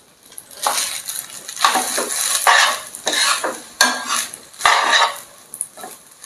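Spaghetti being stirred and tossed in a frying pan with a spatula: about six rough scraping, rustling strokes, roughly one a second.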